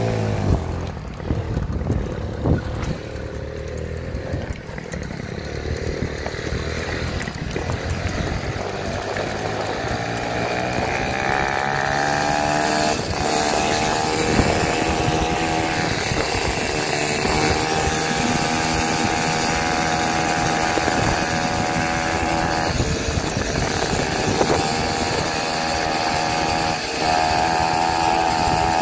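Peugeot 103 moped's freshly rebuilt 50 cc two-stroke single-cylinder engine riding away, the revs climbing over the first ten seconds or so and then holding high, easing off briefly a few times. It is on its first runs, not pushed hard, on a 15 mm carburettor that is not finely tuned.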